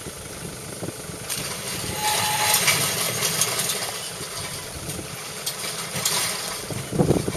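Car engine idling steadily, with a rushing hiss that starts about a second in and fades after several seconds, and a few low thumps near the end.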